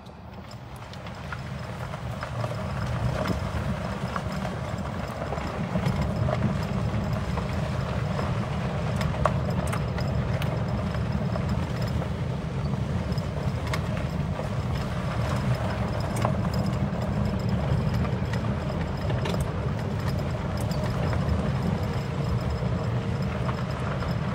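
A utility cart driving along a dirt track: a steady low rumble that builds over the first couple of seconds as it gets moving, with scattered clicks and knocks from the ride over rough ground.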